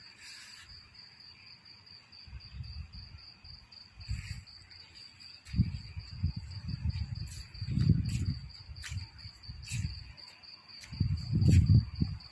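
Crickets chirping in a steady, evenly pulsing high trill. Low rumbling noise on the microphone comes and goes, loudest around the middle and near the end.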